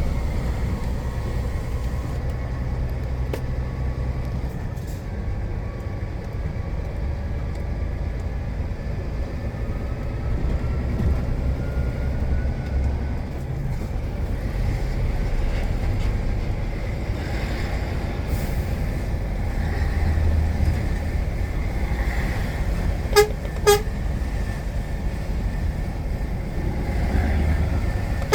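Truck engine running steadily on the road, with a low rumble throughout. Two short horn toots come about half a second apart near the end.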